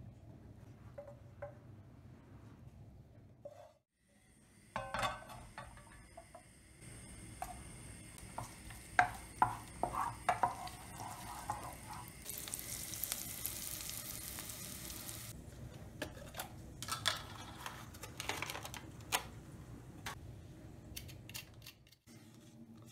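Cooking sounds from a pan: a utensil stirring and knocking against it, with a loud sizzling hiss for about three seconds in the middle.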